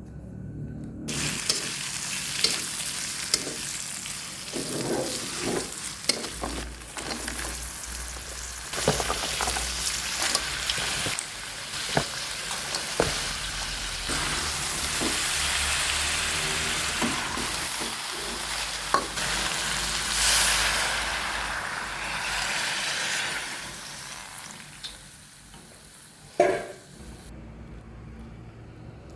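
Bumbu rujak spice paste sizzling as it fries in a pan and is stirred, with sharp knocks of the utensil against the pan scattered through. The sizzling starts about a second in, eases off a few seconds before the end, and a last loud knock comes near the end.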